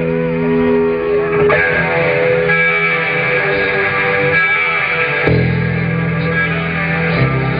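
Live rock band playing: electric guitar holding sustained chords that change a few times, with heavier bass notes joining about five seconds in.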